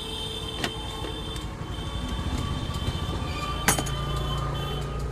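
Scattered sharp clicks and taps of a screwdriver working on the plastic base cover of a mixer grinder, one louder click a little before the end, over a steady low rumble.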